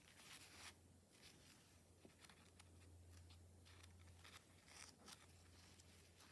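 Faint, soft rustles of dry used-teabag paper pages being turned by hand, a few separate crinkles, over a low steady hum.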